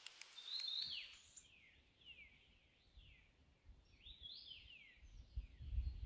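A bird singing faintly: a run of short high whistled notes, each sliding down in pitch, about two a second. A low rumble rises under it near the end.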